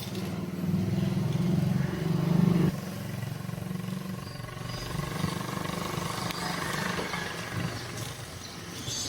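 A motor vehicle's engine running, loudest over the first few seconds and dropping away suddenly a little under three seconds in, then continuing more quietly.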